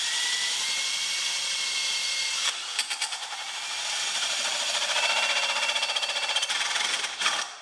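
Power drill spinning a 5/8-inch paddle bit straight through the side wall of a dry box. It is a steady motor whine that starts abruptly, takes on a fast chattering texture about halfway through as the bit cuts, and stops shortly before the end.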